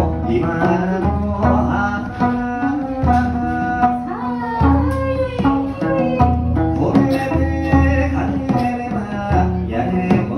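Live Okinawan folk music: a woman sings while beating a small laced drum with sticks, with a plucked sanshin accompanying.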